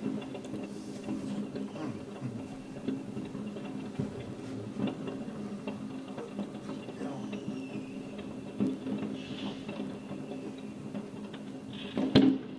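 Handling noise from a handheld camera: faint scattered clicks and rubbing over a steady low hum, with one sharp knock about twelve seconds in.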